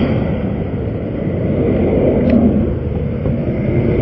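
Steady low rumble of interstate traffic, swelling a little about two seconds in, with a faint click just after.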